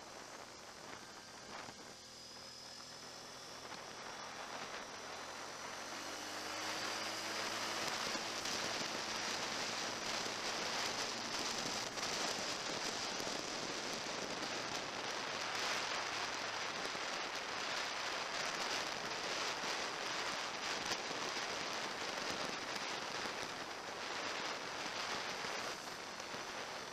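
Water splashing and running, a steady crackling hiss that swells over the first several seconds and then holds.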